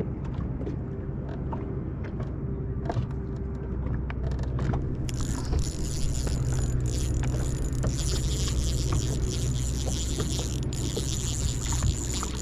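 Electric trolling motor running with a steady low hum, over wind and small waves against the boat. A faint high whine joins about five seconds in, with scattered small clicks of line and tackle handling.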